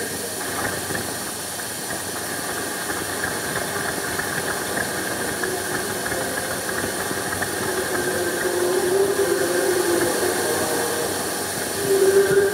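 Large crowd applauding and cheering in a steady, dense wash of noise. A faint held chord of music sits beneath it and grows louder near the end.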